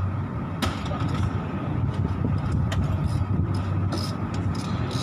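Steady low machine rumble in a workshop, with a few light clicks and taps as engine parts are handled by hand.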